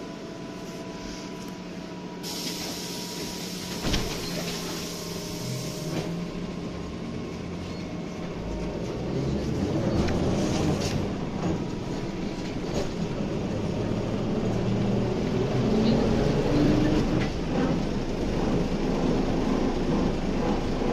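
BTZ-5201 trolleybus heard from inside: it stands with a steady electrical whine, a hiss of air lasts about four seconds with a thump in the middle, then it pulls away and its traction drive's hum climbs in steps as it gathers speed.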